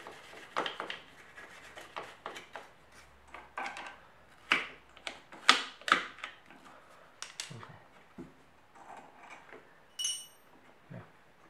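Irregular scrapes, taps and clicks of hand-cleaning and handling parts inside a scooter's variator case, with a short metallic ring about ten seconds in.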